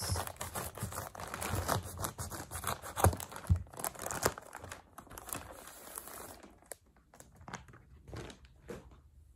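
Scissors cutting through a brown paper mailer, then the paper crinkling and tearing as it is pulled open and the package inside is handled, with a few sharp clicks about three seconds in. The rustling thins out and grows quieter over the last few seconds.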